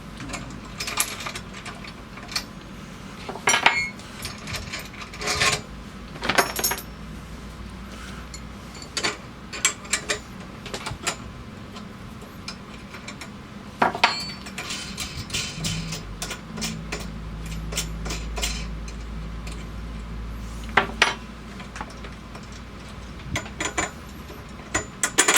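Steel wrenches clinking and tapping against a bolt and steel bracket as a bolt is loosened and taken out: a scattered series of sharp metallic clinks. A low hum runs for a few seconds past the middle.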